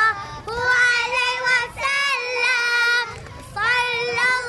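A child singing in a clear, high voice, holding long notes in three slow phrases with short breaks between them.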